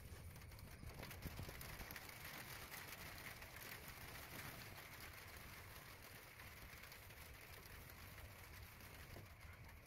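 Near silence: a faint, steady hiss of background noise.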